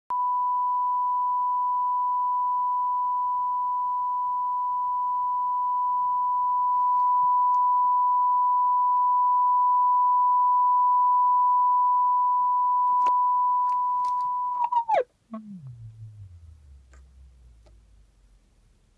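Loudspeaker driver playing a steady 1 kHz sine test tone for an abnormal-noise check, with no rattle or buzz: the driver is sound. Near the end a few clicks come, then the tone glides quickly down in pitch to a low hum that fades away.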